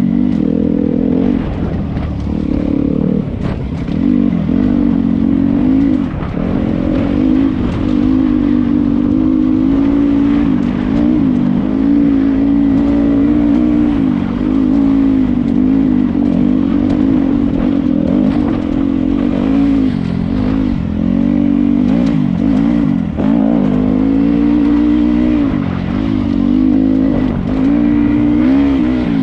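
Dirt bike engine running under way, its revs rising and falling again and again as the throttle is worked.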